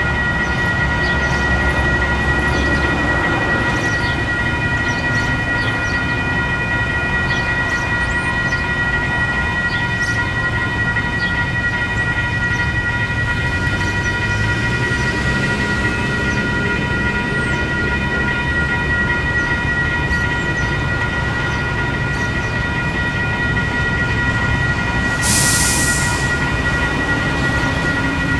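A level crossing warning alarm sounding steadily as several high-pitched tones, over a low rumble. A brief hiss comes about 25 seconds in.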